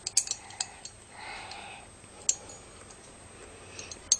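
Sparse faint clicks and light taps from a plastic orrery model being handled and turned: a few in the first second, one about two seconds in, and one near the end.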